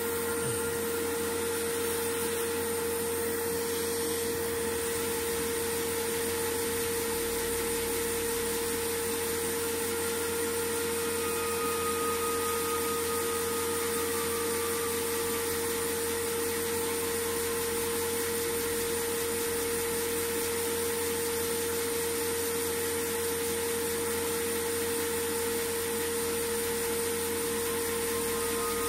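A small electric motor or blower running steadily, with a constant mid-pitched hum.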